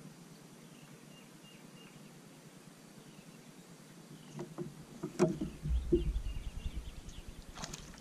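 Faint bird chirps over quiet lake air, then from about four seconds in a few sharp knocks and bumps with a low rumble: an angler shifting on a boat's front deck and handling a long fishing rod.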